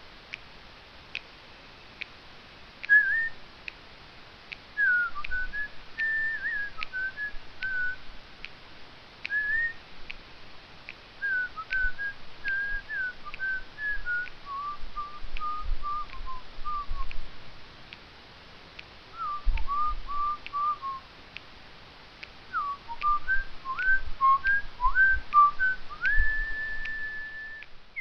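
A person whistling a tune in short phrases of quick notes, ending on a long held note, over a faint steady tick about once a second.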